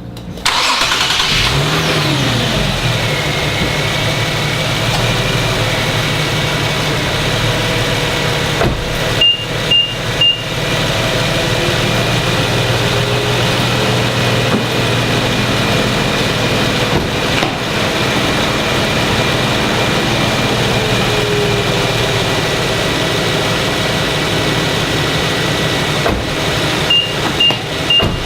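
2015 Infiniti Q70's 3.7-litre V6 starting semi-warm, after sitting a few hours rather than overnight: it catches just after the start with a short rev flare that rises and falls back, then settles into a steady idle.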